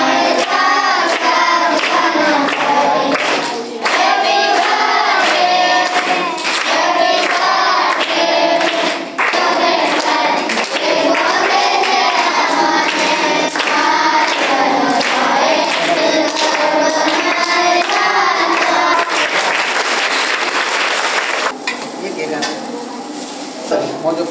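A group of children singing together in phrases; the singing stops about 21 seconds in, leaving quieter background noise.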